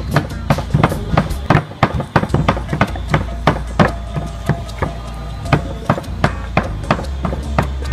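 A heavy cleaver chopping raw pork on a wooden chopping block: a quick, uneven run of sharp knocks, about three a second.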